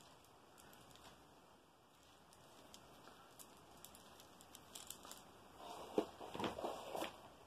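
A clear plastic bag of small coloured beads crinkling as it is handled, with faint clicks. It starts about three seconds in and is loudest near the end.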